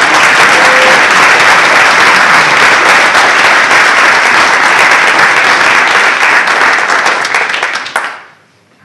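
Audience applauding loudly, dying away about eight seconds in.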